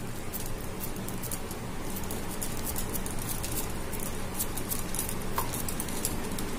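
Hands pressing and shaping a sticky date-and-dry-fruit mixture into a modak, making small irregular crackles and clicks over a steady low hum.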